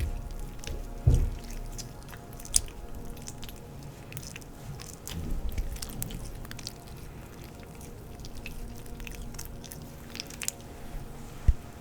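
Wet, sticky clicks and crackles of oiled hands working over skin in a face massage, scattered and irregular, with a couple of louder low thumps about a second in and near the end. Soft music plays underneath.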